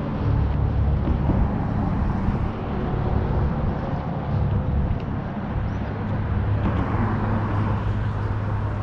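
Road traffic: a steady low rumble of passing vehicles.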